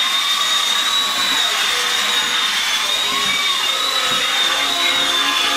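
High-speed electric motor running steadily: a rushing hiss under a high whine whose pitch wavers slightly.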